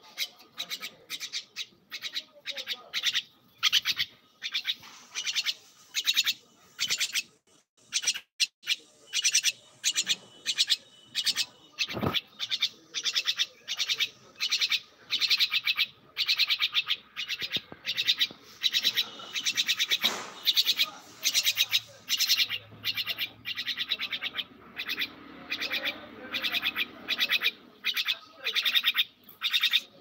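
A myna calling over and over, short harsh squawks at about two a second, with a single knock near the middle.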